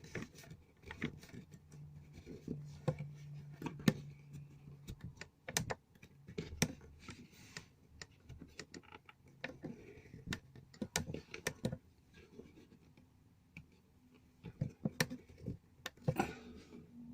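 Irregular clicks and light knocks from hands working with small parts and tools, with a faint low hum in places.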